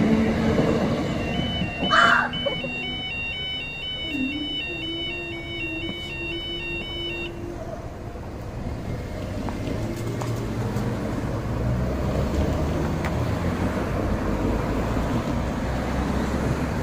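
Automatic level crossing warning alarm, two tones alternating rapidly, stopping about seven seconds in: the sign that the crossing is reopening. A brief sharp noise about two seconds in, and road traffic running after the alarm stops.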